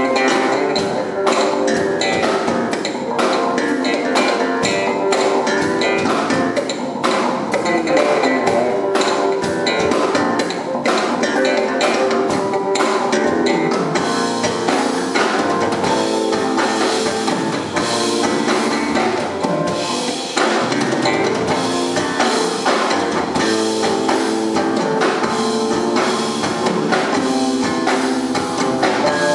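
Live band playing instrumental music: electric bass, drum kit and keyboard together, with frequent drum hits that are busiest in the first half.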